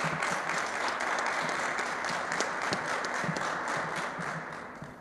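Applause: many hands clapping steadily, then fading out near the end.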